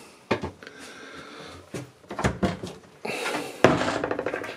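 A wooden interior door is opened: a few clicks and knocks, then a louder rattling stretch near the end.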